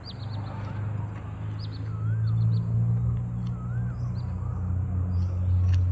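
A low, steady engine hum that grows louder about two seconds in, with birds calling over it: short high chirps and repeated warbling notes.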